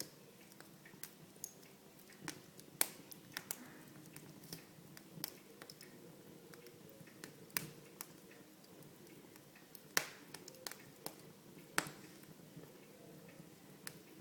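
Wood fire crackling in a fireplace: irregular sharp pops and snaps, a few louder than the rest, over a faint steady hiss.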